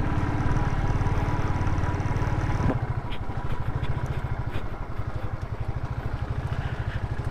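Motorcycle engine running while ridden up a steep, rough trail, its note dropping to a slower, lower pulse about three seconds in, with light clicks and rattles after that.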